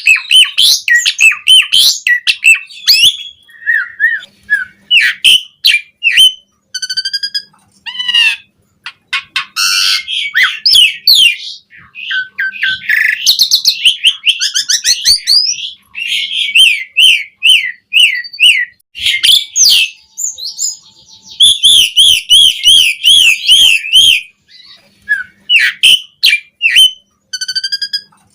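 Asian pied starling (jalak suren) singing a long, varied song of whistles, harsh chatter and rapid clicks with only brief pauses. Near the end comes a run of quick, repeated warbles of about three seconds.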